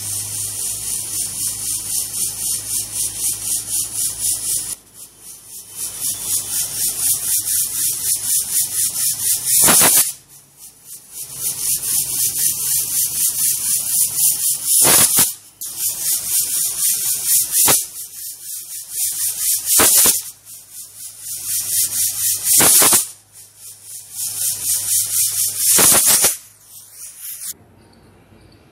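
Aluminium pressure cooker on a gas flame blowing steam past its weight valve: a loud rattling hiss that swells to a shrill whistle about six times, each whistle cutting off abruptly. Each whistle is the cooker reaching pressure, counted to time the cooking of the pumpkin.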